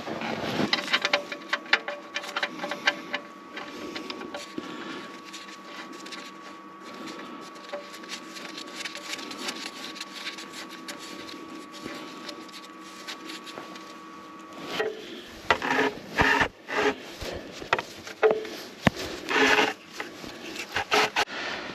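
Hand-tool work as the oil drain plug is wound back into a John Deere 6110 tractor's oil pan: rapid small clicks and rubbing at first. A faint steady hum runs underneath through the middle, and louder irregular knocks and scrapes come in the last several seconds.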